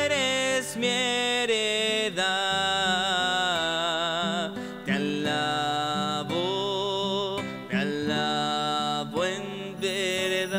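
A hymn sung with vibrato over a sustained instrumental accompaniment, moving in phrases of a second or two.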